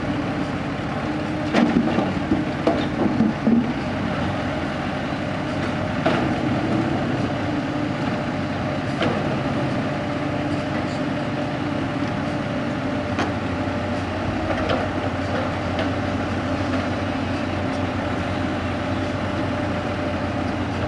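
Heavy diesel earthmoving machinery running steadily, an excavator working as it loads soil into a dump truck, with clanks and knocks of metal and dirt every few seconds. The engine note changes about two-thirds of the way in.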